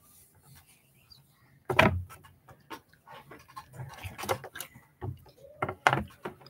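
Handling noise close to the microphone as a child reaches at the recording device: one loud bump about two seconds in, then scattered knocks and rustling.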